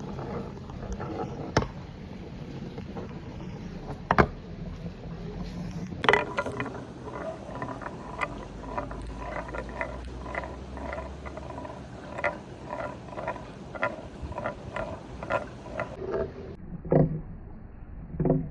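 A billiard ball rolling along a wooden marble run, a steady rolling rumble with sharp knocks on the wood, one loud about four seconds in. From about six seconds in comes a long run of regular clacks, a few a second, and near the end a couple of duller thumps.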